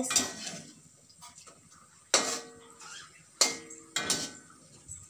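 Steel kitchen utensils clanking against each other about four times, each strike ringing briefly.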